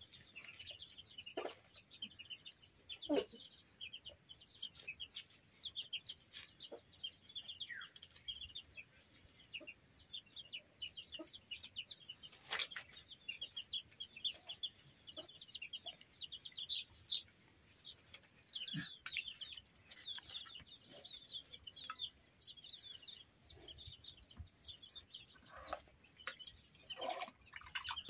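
Small birds chirping busily and continuously, with a few lower, downward-sweeping calls and scattered light clicks and taps.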